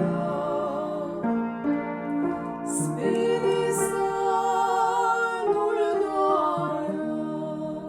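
Voices singing a Romanian Christmas carol (colind) in long held notes over a keyboard accompaniment.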